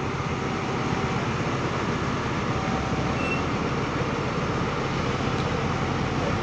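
Diesel bus engines running steadily close by, a continuous dense low engine noise with no break.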